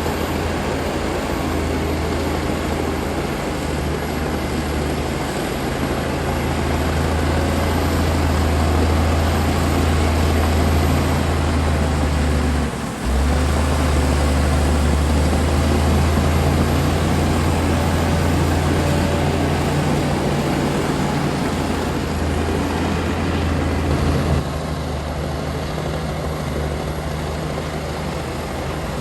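Komatsu D60P bulldozer's diesel engine running under load with a steady, deep drone. The sound breaks off for a moment about thirteen seconds in and is slightly quieter from about twenty-four seconds in.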